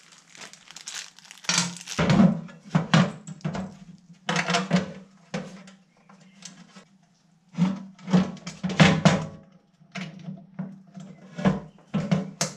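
Thin aluminium pannier box and its sheet-aluminium lid panel clanking and knocking as they are handled and fitted together. The knocks come in several short bursts, each with a short hollow ring.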